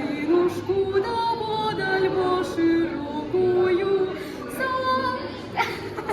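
Music with a female voice singing a melody in held, stepping notes over a steady low accompaniment.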